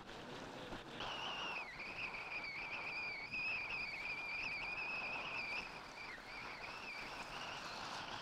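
Miss GEICO offshore racing boat's engines running with a high, slightly wavering whine that starts about a second in, over a hiss of wind and water.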